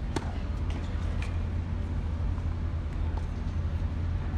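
Tennis racket striking a serve: one sharp pop just after the start, then a fainter knock of the ball about a second later, over a steady low rumble.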